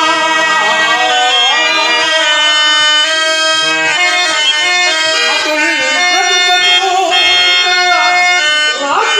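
A harmonium sustains the accompaniment while a voice sings a drawn-out, ornamented verse over it, sliding between notes.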